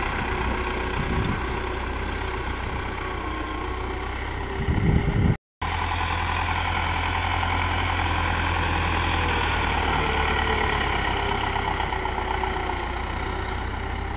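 Farm tractor's diesel engine running steadily while it pulls a laser land-leveller blade through dry soil. The sound drops out completely for a moment about five seconds in, just after a short louder rumble.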